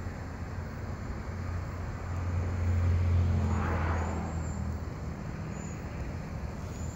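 A vehicle passing by: traffic noise that swells to a peak about halfway through and fades away, over a steady low hum.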